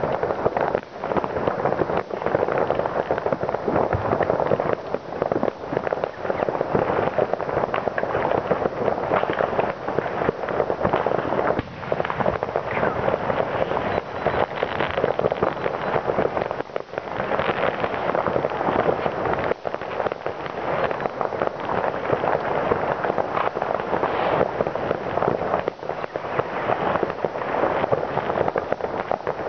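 Many fireworks and firecrackers going off at once, merging into a continuous crackle of overlapping bangs and pops with no pause.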